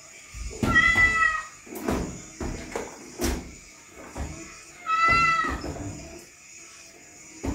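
Domestic cat meowing twice, each call about two-thirds of a second long and dropping in pitch at the end, with a few knocks in between.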